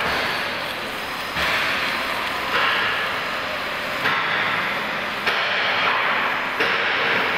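Submerged arc welding machine at work on a steel beam: a steady hissing, crackling noise that swells in steps every second or so.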